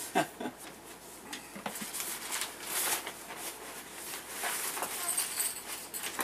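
Rustling and crinkling of a waterproof bag being opened and handled, with scattered light clicks and taps.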